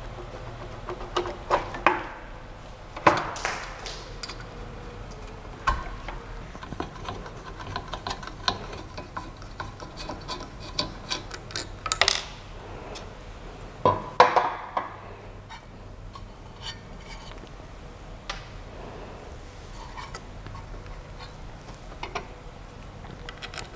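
Tool head being handled and fitted on a Creality CP-01 3D printer/engraver: scattered clicks, knocks and rattles of plastic and metal parts. The loudest knocks come about three, twelve and fourteen seconds in, over a faint steady low hum.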